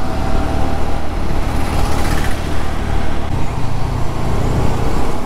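Honda Dio scooter's single-cylinder engine running while riding, with wind rushing over the microphone; the engine note steps up about three seconds in.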